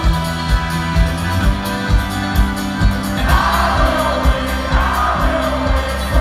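Live folk-rock band playing: a steady kick drum at about two beats a second under acoustic strings and double bass, with singing that grows louder about three seconds in.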